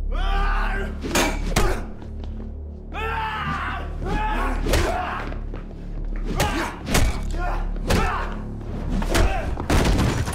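Film fight sound effects: a string of sharp punch and body-hit impacts, about eight of them, with two long pained shouts near the start and about three seconds in, over a low, droning film score.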